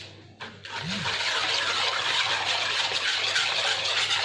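Wire whisk stirring a thin milk-and-yeast batter in a wooden bowl, mixing in the baking powder just added: a steady liquid swishing that starts about a second in.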